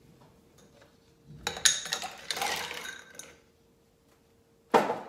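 Ice cubes clattering into a metal cocktail shaker tin for about two seconds, with a single sharp metallic clank near the end. The ice is going in first, before the liquid is shaken, for a reverse dry shake.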